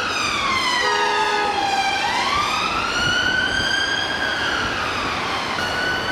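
UK police car siren on wail: a slow sweep that falls, rises and falls again, then holds a steady tone near the end. A short steady tone from a second siren or horn sounds briefly about a second in.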